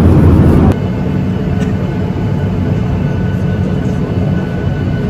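Steady in-flight cabin drone of an airliner: engine and airflow noise with a faint hum. It drops suddenly to a lower level under a second in and then holds even.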